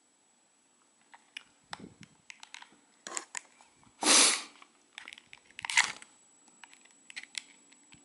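A knife blade clicks and scrapes against hard plastic while prying at the latched power button of a TV remote. There is a louder rustling scrape of the remote being handled about four seconds in, and another at about six seconds.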